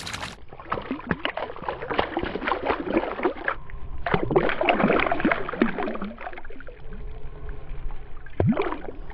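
Water sloshing and splashing in irregular bursts, heaviest in the first two thirds, with a shorter splash near the end.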